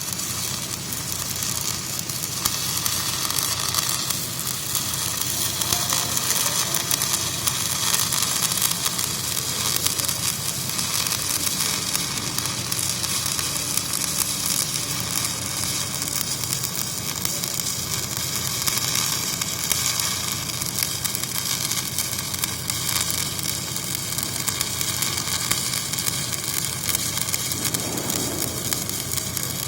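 Electric arc welding: the arc sizzles and crackles steadily, like frying, with no breaks.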